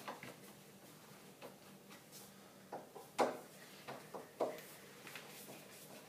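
Scattered light clicks and knocks of a screwdriver working the screw of a small fridge's door hinge, with a few sharper knocks in the middle stretch.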